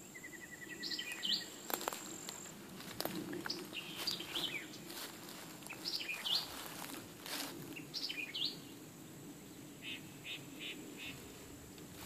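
Wild songbirds calling: a short, high two-part phrase repeated every two to three seconds, a quick trill in the first second, and a run of four even notes near the end. A thin steady high whine runs under the first couple of seconds, and a few sharp clicks break in.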